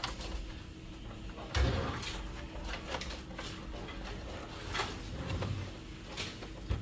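Hands working on a printer's plastic housing and cables: scattered clicks and knocks, with one louder thump about a second and a half in.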